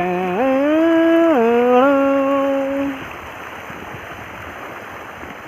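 A man's voice singing or humming three long held notes, stepping up and then down, for about three seconds. After that, only the steady rush of the river.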